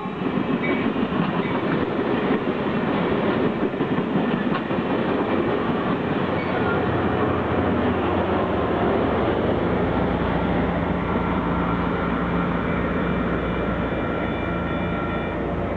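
Caltrain bi-level commuter cars rolling past close by over a grade crossing, with the wheels clattering on the rails. About halfway through, the clatter gives way to a steadier rumble with a few faint held tones as the train clears.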